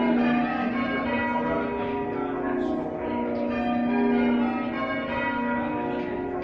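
Church bells rung by a band of bell ringers, one bell striking after another in a continuous sequence, each stroke ringing on over the next.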